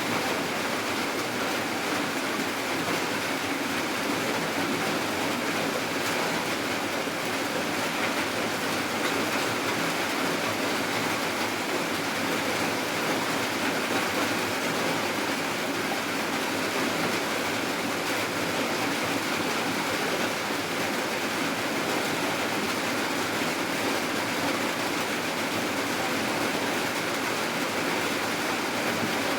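Steady rain falling, an even unbroken hiss that holds the same level throughout.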